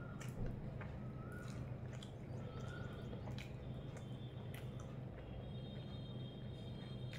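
Soft squishing and scattered small clicks of rice and fish curry being mixed by hand on a plate, with chewing, over a steady low hum.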